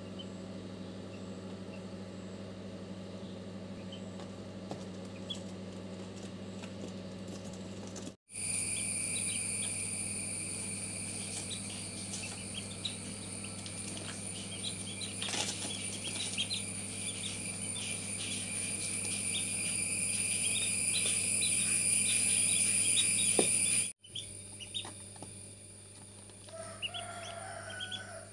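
Ducklings peeping in short, high chirps over a steady background hum, with a high-pitched whine in the middle stretch.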